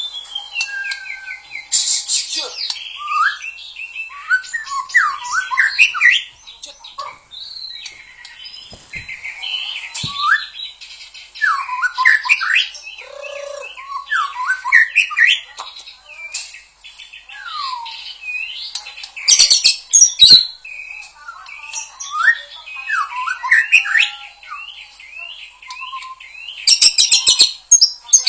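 White-rumped shama (murai batu) singing a long, varied song of clear whistles and rising and falling slurred notes. Harsh chattering bursts break in about 2 seconds in, around 20 seconds and near the end.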